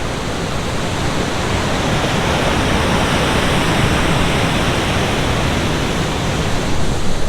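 Waterfall and river rushing, a steady loud roar of falling water.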